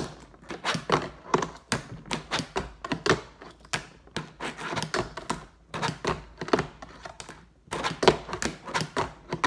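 Fingerboard clacking and tapping on a cardboard board-game box and tabletop: a rapid, irregular string of sharp clicks as the board's tail, wheels and trucks hit, with a short pause near the end.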